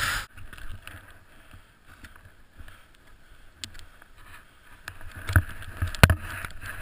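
Snowboard sliding and carving through powder snow, a rushing hiss of snow against the board, with wind buffeting the microphone at the start and then dropping away. A few sharp knocks and thumps come about five and six seconds in as snow sprays up around the board.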